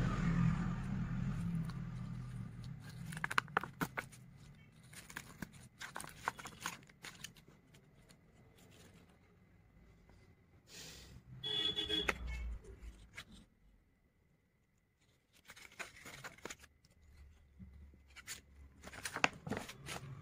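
Paper and cardstock being handled: rustling and light tapping as a folded card is opened and a page of the project file is turned, coming and going with quiet gaps between.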